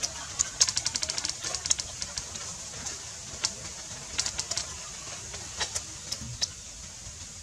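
Close-up eating sounds: crisp grilled meat torn apart by hand and chewed, with a quick run of sharp crackling clicks about a second in, then scattered single clicks.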